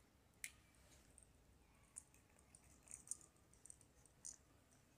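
Faint clicks and scrapes of a screwdriver turning a terminal screw in a plastic bulb holder and the holder's cover being handled, with one sharp click about half a second in and a run of small clicks in the middle.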